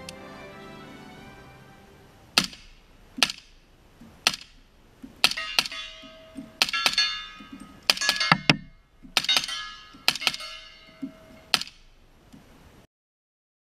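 A string of about a dozen suppressed shots from a 300 AAC Blackout short-barrelled rifle fitted with a Liberty Freedom suppressor, fired at an uneven pace, some in quick pairs, several followed by a ringing.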